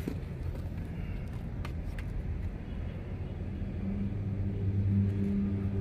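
Low steady rumble, then a motor engine's steady hum that grows louder from about four seconds in, with a few faint clicks early on.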